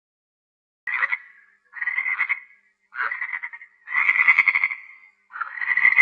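Frog croaking in a series of separate calls, each a rapid rattle of pulses. The first call comes about a second in, and the later ones grow longer; five start in all.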